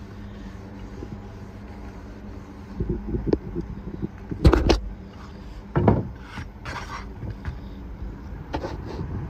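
Rag wiping boiled linseed oil onto a wooden Osage orange axe handle, with several sharp knocks and clatters of handling, the loudest about halfway through and another near the end, over a steady low motor hum.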